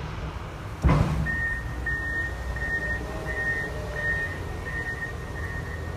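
Construction site noise: a single heavy bang about a second in, then a construction vehicle's reversing alarm beeping steadily at one pitch, about three beeps every two seconds, over a low engine rumble.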